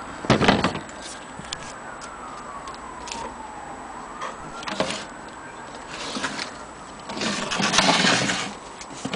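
Wooden hood of a longcase clock being handled, with its glass door swinging: irregular knocks and rubbing, a loud clatter just after the start and a longer rush of handling noise near the end. A faint whine rises and falls in the background during the first half.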